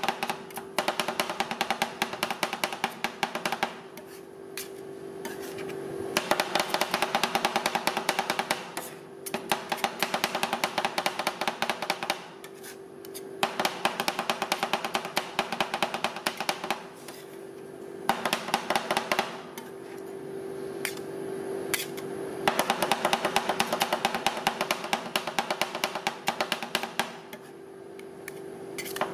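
Two metal spatulas rapidly chopping and tapping on the stainless steel cold plate of a rolled ice cream machine, a fast clatter in runs of a few seconds with short pauses, over a steady hum.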